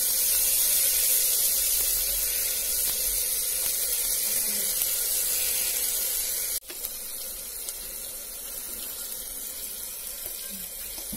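Onion, garlic and ginger paste sizzling steadily in hot oil in an open pressure cooker, a continuous high hiss that drops abruptly in level about two-thirds of the way through.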